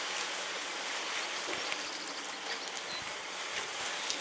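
Garden hose pipe spraying water over a wire spray cage of budgerigars, a steady hiss: the birds' initial drenching before a show.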